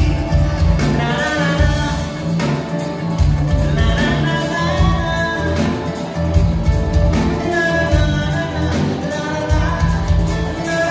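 A live band playing a song: a male lead voice singing over drums with a steady beat, and electric and acoustic guitars.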